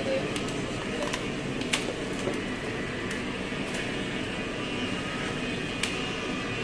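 Steady machine hum with a few short, sharp clicks or taps, the loudest about two seconds in.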